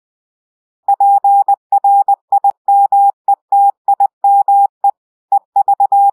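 Morse code beeps: one steady electronic tone keyed on and off in short and long beeps. The pattern spells PRIMETIME E and starts the V.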